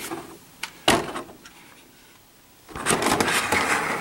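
Clear plastic clamshell packaging being handled as a large toy robot figure is lifted out of it: a sharp knock about a second in, then crackling and rustling plastic from a little past halfway to the end.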